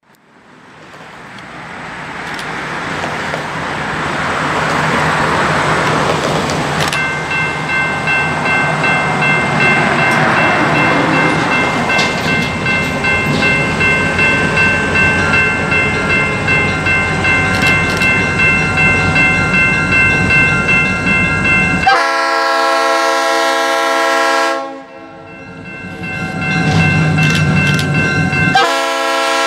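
Bay Colony Railroad diesel locomotive approaching, its rumble swelling after a fade-in, with a thin steady high tone over it. Its air horn then sounds a long, loud blast, stops for a few seconds, and starts another blast near the end.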